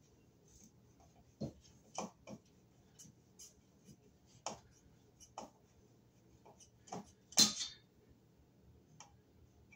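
Hand screwdriver driving screws to fasten a ceiling fan's mounting bracket to the electrical box overhead: irregular scattered clicks and clinks, the loudest a short rattle about seven seconds in.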